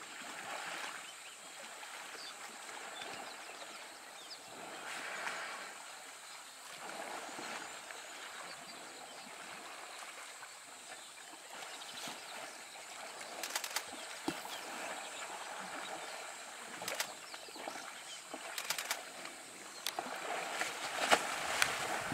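Water sloshing and splashing as two African elephant bulls wrestle in the water, in uneven swells, with a few sharp cracks in the second half and the loudest splashing near the end.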